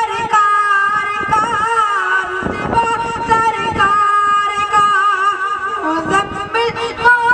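A boy's high voice singing a naat (devotional Urdu praise-poem) into a microphone, holding long, wavering, ornamented notes.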